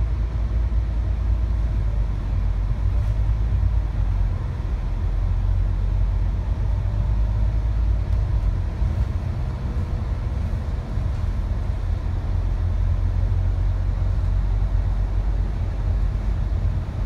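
Inside a moving bus: a steady low rumble of the engine and road noise.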